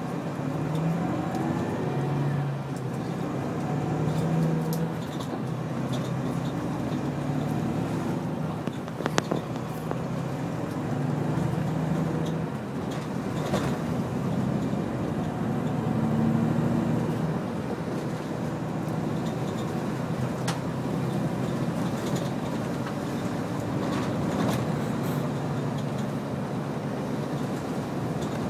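Coach engine and road noise heard from inside the cabin while driving, the engine note shifting up and down as the coach speeds up and slows. A single sharp click about nine seconds in.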